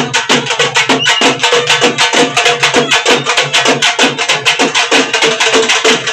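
A group of procession drummers playing fast on hand-held drums, in a dense, driving beat of many strokes a second, with a steady held note carrying under it.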